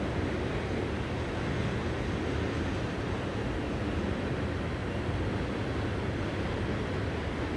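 Steady low rumbling noise of wind buffeting the camcorder's built-in microphone.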